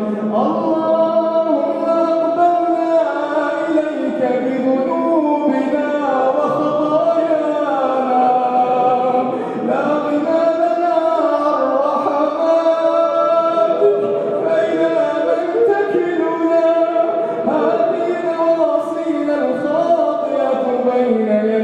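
A man's voice chanting an Arabic supplication (du'a) in long, drawn-out melodic phrases that glide up and down in pitch, the recited Ramadan night prayer of a mosque imam.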